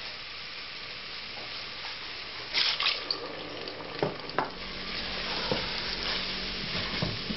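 A saucepan of thick browned paste and vegetables sizzling and frying as wine goes in, with a brief louder burst of sizzle about two and a half seconds in. In the second half a wooden spoon stirs the mixture, knocking against the steel pot a few times.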